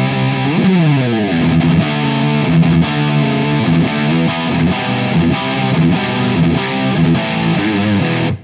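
Distorted electric guitar played through a Laney LA30BL 30-watt single-channel tube amp with two EL34 output valves. The part is sustained chords and riffs with a slide down in pitch about half a second in, and it cuts off sharply at the end.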